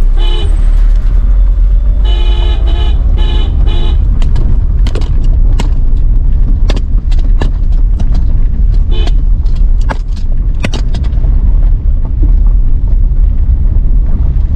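A vehicle horn tooting in quick runs of short beeps, once at the start and again for about two seconds shortly after, over the steady low rumble of a car driving on a rough mountain road. Scattered sharp knocks and clicks follow in the middle.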